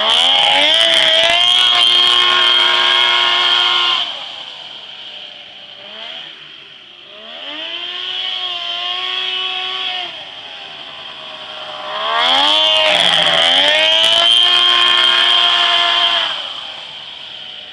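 Homebuilt off-road buggy with a Polaris snowmobile triple engine driving around, its engine revving up and down. It comes by loud twice, for about four seconds each time, with a quieter stretch in between.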